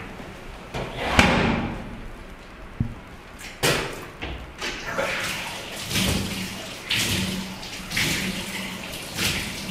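A man retching and spitting in repeated heaves, about one a second.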